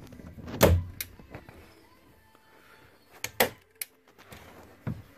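Hand staple gun firing staples through carpet into a plywood floor: several sharp snaps, the loudest about a second in and about three and a half seconds in, with lighter clicks between and another near the end.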